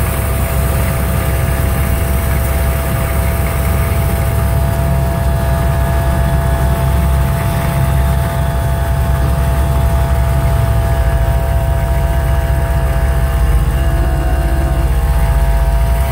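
A Hummer M998's diesel V8 running as the truck drives along, heard from inside the cab. It makes a loud, steady low drone with a constant whine above it.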